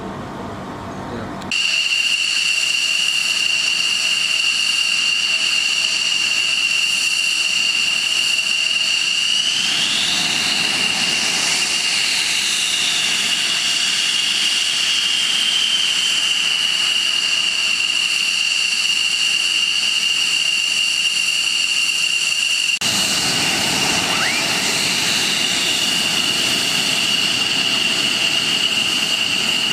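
Jet aircraft engine running with a loud, steady, high turbine whine over a rushing noise; it starts abruptly a second or so in. Around ten seconds in, a higher whine rises and then falls away.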